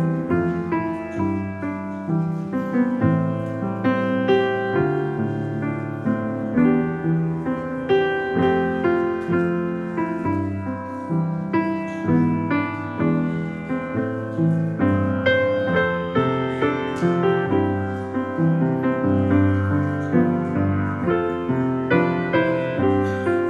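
Piano playing an instrumental piece, notes and chords struck in a steady flowing rhythm.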